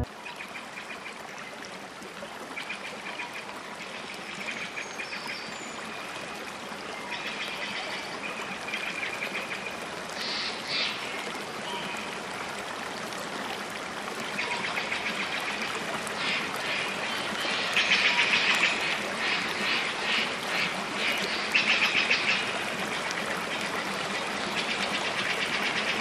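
Tropical forest ambience: water trickling steadily, with bursts of rapid chattering bird calls that come thicker and louder in the second half.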